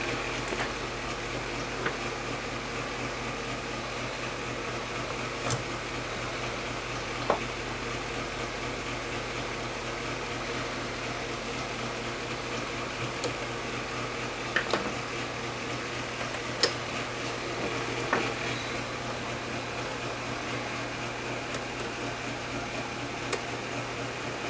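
Screws and a screwdriver clicking and tapping as the top cover of a Sony TC-200 reel-to-reel tape deck is screwed down: scattered sharp clicks over a steady hum.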